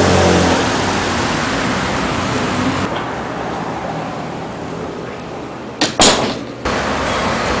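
Street traffic noise, with a passing vehicle's engine fading in the first second. About six seconds in come two sharp knocks and a short burst of clatter.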